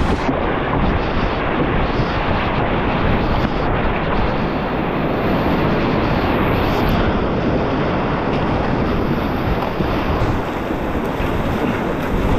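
Whitewater rushing and crashing around a racing canoe as it runs a big river rapid: a loud, steady roar of water, with spray splashing right at the camera.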